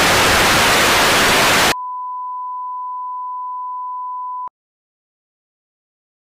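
Loud TV static hiss that cuts off about two seconds in, giving way to a steady single-pitch test-tone beep (about 1 kHz, the colour-bar tone) that stops abruptly a few seconds later.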